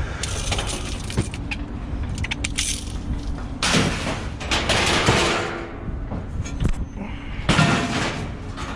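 Scrap metal clattering and crashing as pieces are thrown and dumped, with repeated knocks and two or three louder crashes, some ringing briefly.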